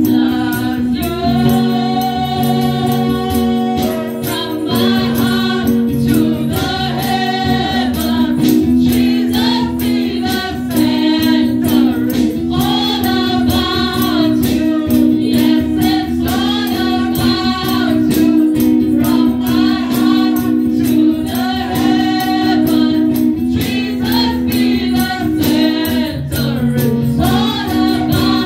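A gospel worship song sung live: a woman's lead voice through a microphone and PA, with backing singers, over held keyboard-like chords and a steady beat.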